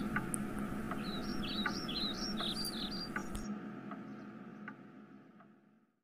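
A run of quick, high chirps over a faint steady hum, from about a second in for two seconds, with a few scattered clicks; then it all fades out to silence near the end.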